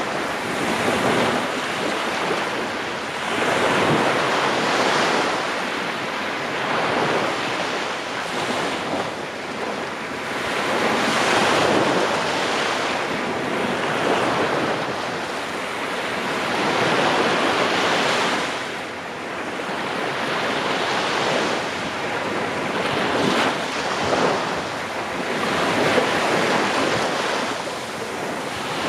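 Small waves breaking and washing up a sandy beach, swelling and fading every few seconds, with wind buffeting the microphone.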